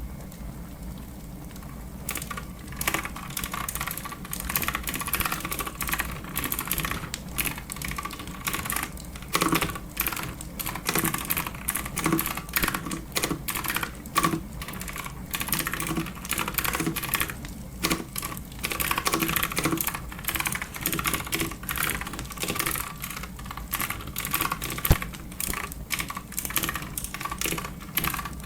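Clicky computer keyboard being typed on in quick, irregular runs of keystrokes, starting about two seconds in.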